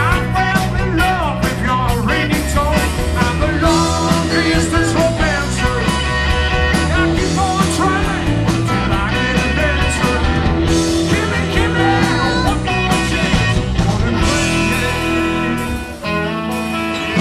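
A rock-and-roll band playing live, with electric guitars, bass, drums and keyboard. The low end drops out for a moment near the end.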